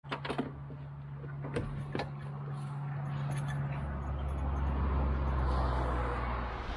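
A vehicle engine humming steadily, with a few sharp clicks in the first two seconds; a deeper hum and a rising rush of noise join about four seconds in.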